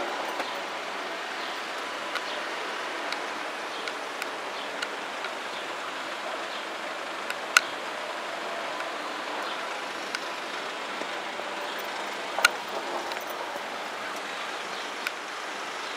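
Steady outdoor background hiss with a few sharp clicks; the two loudest come about halfway through and about three-quarters of the way through.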